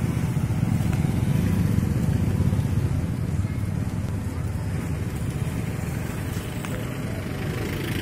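A motor vehicle engine running nearby, a steady low rumble.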